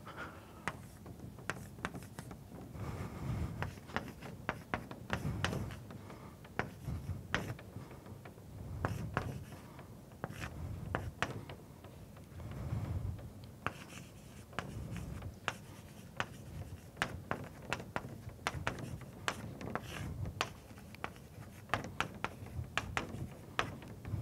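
Chalk writing on a blackboard: a rapid, irregular run of sharp taps and short scrapes as a formula is written, with dull low knocks under them.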